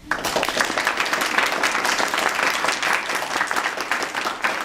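Audience applauding. The clapping breaks out suddenly and keeps up steadily.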